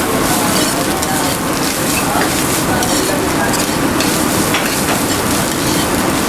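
Fried rice being stir-fried in a hot wok: steady sizzling, with the metal spatula scraping and tapping against the pan. The seasoned rice is being fried until it turns fragrant and a little dry.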